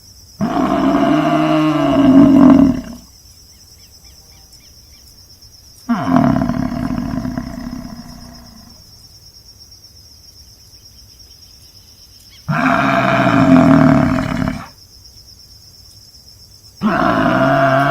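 Four loud, drawn-out animal calls, each two to three seconds long with a wavering pitch, spaced a few seconds apart, over a steady high chirring of insects.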